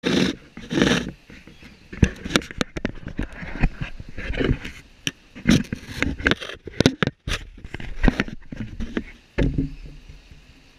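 Giant otters swimming close around an underwater camera: irregular splashing and rushing water with many sharp knocks and bumps, dying away to a faint hiss near the end.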